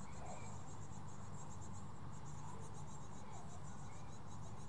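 Insects chirping in a fast, pulsing high trill, over a steady low rumble.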